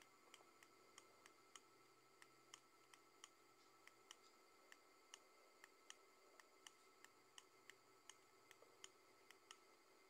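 Near silence with faint, irregular light clicks, roughly three a second, over a faint steady high hum.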